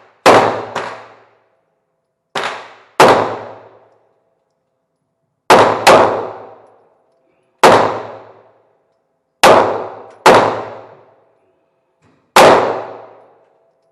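Gunshots echoing in an indoor shooting range: about ten loud shots at irregular intervals, some in quick pairs, each with a long reverberant decay.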